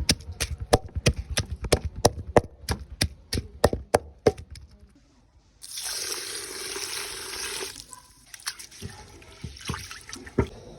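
A run of rapid, even knocks, about four a second, stops about four and a half seconds in. After a short pause, water runs from a tap for about two seconds, followed by a few scattered knocks.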